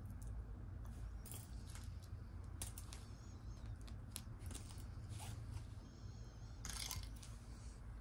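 Small metal costume jewelry being handled: scattered light clicks, clinks and rustles as earrings are picked up and set down on cloth, with a busier cluster of clicks about seven seconds in, over a low steady hum.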